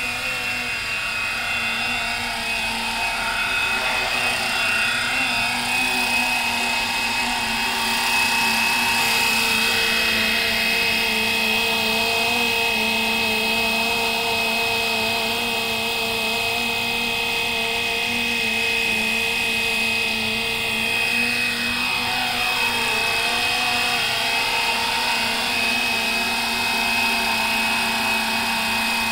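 Electric RC scale Huey UH-1 helicopter on Bell 206 mechanics, its main and motor-driven tail rotors running with a steady layered whine. About two-thirds of the way through, the pitch briefly dips and climbs back.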